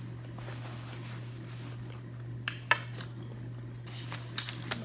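Quiet eating and handling at a table: a few sharp clicks and taps about two and a half seconds in and again near the end, over a steady low hum.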